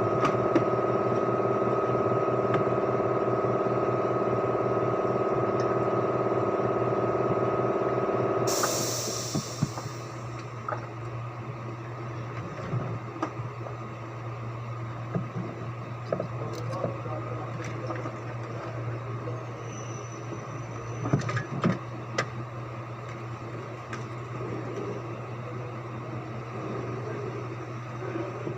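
Engine running steadily at idle, then cutting out about nine seconds in with a short hiss. A lower steady hum remains, with scattered light clicks and knocks.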